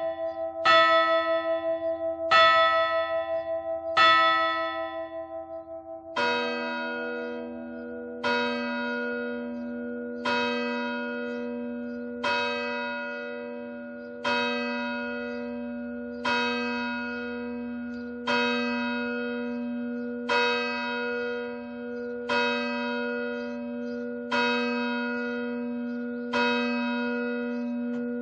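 Church bells tolling. A bell strikes three times about every second and a half, then about six seconds in a deeper-toned bell takes over, struck about every two seconds. Each stroke rings on with a wavering hum into the next.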